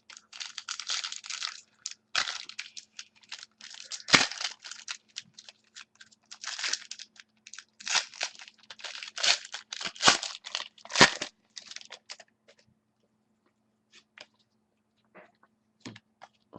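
Trading-card pack wrapper being torn open and crinkled: a run of crackling, tearing rustles that dies down to a few faint rustles over the last few seconds.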